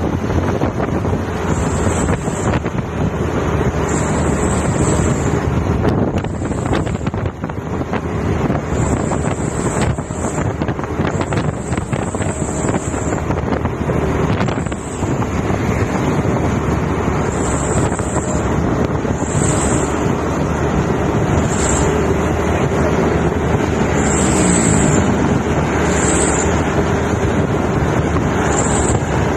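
Wind buffeting the microphone on a moving vehicle, over the steady engine and tyre noise of trucks driving along the road.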